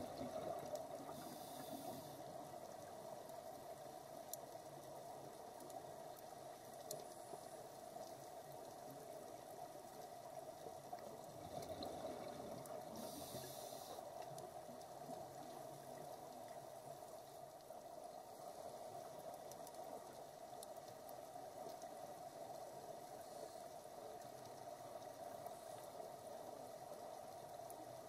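Underwater sound on a scuba dive: a faint, steady hiss, with two short bursts of divers' exhaust bubbles, one about a second in and one about thirteen seconds in.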